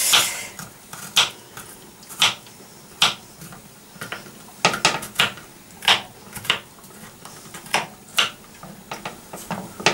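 Small kitchen knife chopping garlic cloves on a wooden chopping board: slow, irregular sharp knocks of the blade striking the wood, about one a second, some coming in quick pairs.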